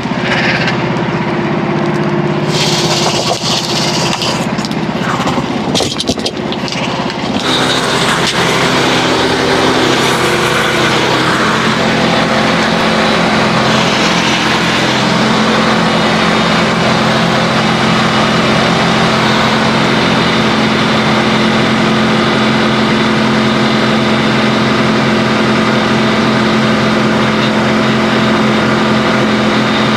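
Frontier portable band sawmill's gas engine running steadily. About seven seconds in, the band blade enters the red oak log and a steady, louder cutting hiss joins the engine for the rest of the cut.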